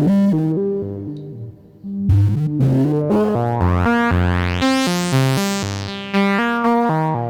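Analogue sawtooth synth bass line playing stepped notes through a Djupviks Mörser WASP-style filter with the resonance turned up high. A bright resonant sweep rises and falls across the notes in the middle.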